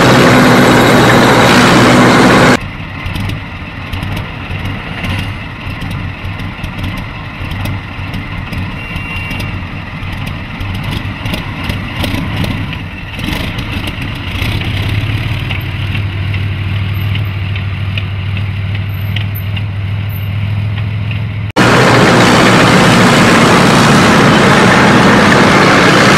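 Tank engine and tracks running loudly as the tank drives across dirt. About two and a half seconds in it cuts to a much quieter low engine rumble with scattered clicks, and near the end the loud driving sound returns.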